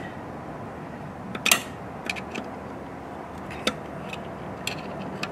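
Small metal clicks and scrapes of a screwdriver tip, ground into a hook, working at a snap ring inside a trailer wheel hub. There are about six separate clinks, the sharpest about one and a half seconds in.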